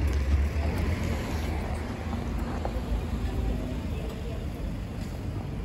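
City street traffic: a steady low rumble of cars and taxis running along a busy road. It is a little louder in the first couple of seconds.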